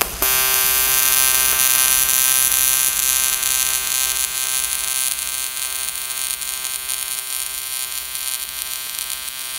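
AC TIG welding arc on aluminium at a fixed 100 amps from a trigger switch: a steady buzzing hum with a hiss over it, switching on abruptly just after the start.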